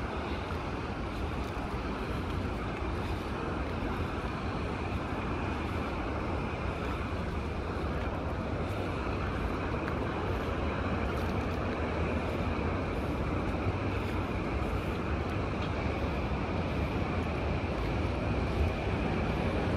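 Steady noise of a moving vehicle: an even rush with a low rumble underneath, slowly growing louder.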